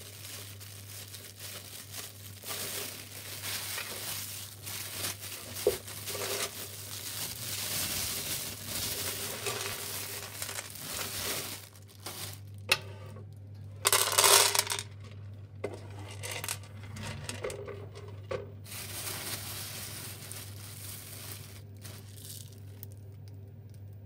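Dry pinto beans clicking and rattling as they are handled in a crinkling plastic bag and poured and sifted in the hand, with a louder rush of beans about 14 seconds in. A steady low hum sits underneath.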